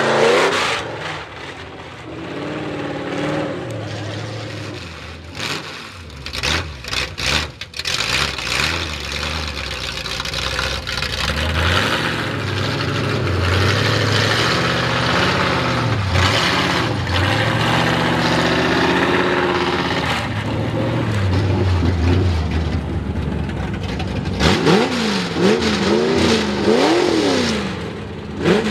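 Ford mega mud truck's V8 on open headers, loud, revving up and down over and over as it drives, with a run of quick rev blips near the end.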